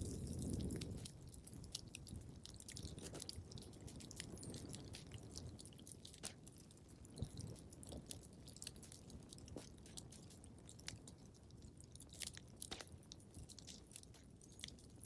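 Wood fire crackling in a fireplace: irregular small pops and snaps over a low rumble of burning logs, the rumble strongest in the first second.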